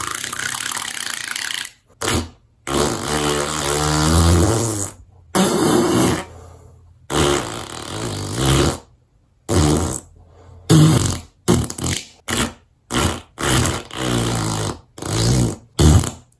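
A string of fart sounds: a few long, drawn-out ones with wavering pitch in the first half, then a quick run of short ones near the end.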